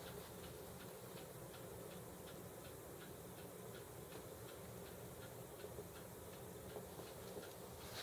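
Motor and gearing of a rotating Zippo lighter display turning the rack, giving a faint steady hum with a light, even tick about three times a second.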